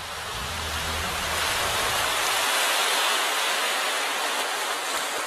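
Rushing water noise that swells to a peak about halfway through and then eases off. A low hum under it cuts out a little past halfway.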